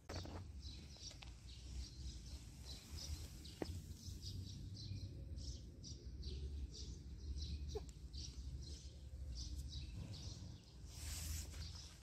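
Small birds chirping in many quick, short calls, over a steady low rumble of outdoor noise, with a brief rush of noise near the end.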